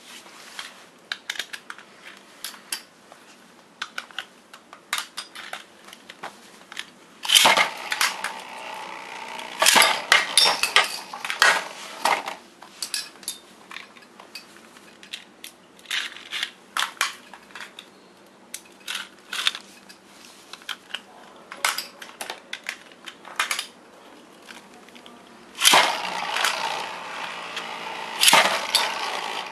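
Beyblade metal spinning tops (Burn Phoenix 135MS and Quetzalcoatl 90RF) being handled, with scattered plastic and metal clicks. In two stretches, about a quarter of the way in and again near the end, tops are launched into a plastic stadium and spin in it with a loud, rattling clatter.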